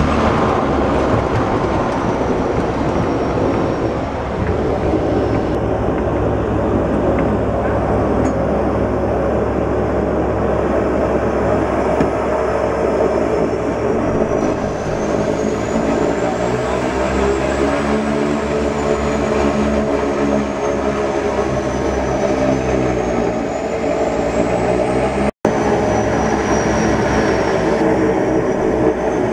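The twin turboprop engines and propellers of a de Havilland Canada DHC-6 Twin Otter floatplane, heard loudly from inside the cabin as it runs on the water. About halfway through, the engine note sags and then climbs back up. The sound breaks off for an instant near the end.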